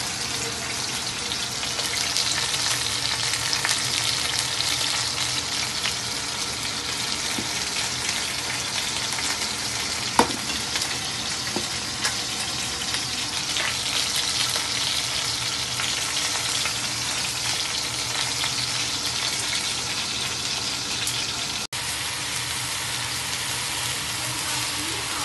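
Onions and shallots sizzling steadily in hot oil in a stainless steel pot, with one sharp knock about ten seconds in.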